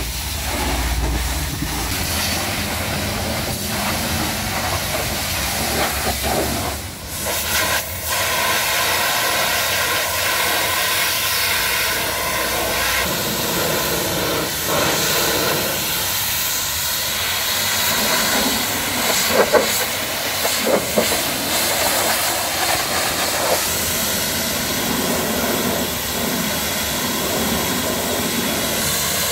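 High-pressure washer jet spraying water onto a truck cab: a steady, loud hiss of the spray that dips briefly about seven seconds in.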